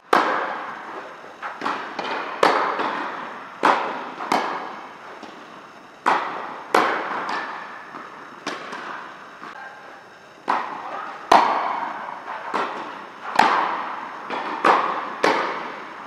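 Tennis ball struck back and forth by rackets in a volley exchange, a sharp pock every second or less, about seventeen hits in all. Each hit echoes briefly in the large indoor tennis hall.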